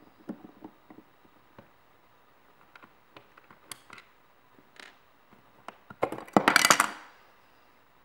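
Small clicks and scrapes of a screwdriver backing the screw out of a plastic wall-outlet cover plate, and of the plate being lifted off. About six seconds in comes a louder clatter of hard plastic and metal lasting about a second.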